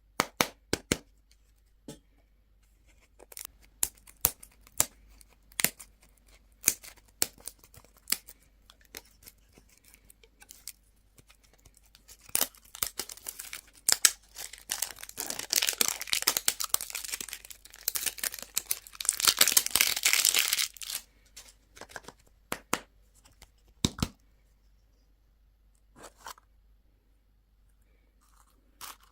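Candy wrapper packaging being handled and torn open: scattered crackles and taps at first, then a long stretch of dense tearing and crinkling in the middle, loudest just after two-thirds of the way through, with a single knock near the end.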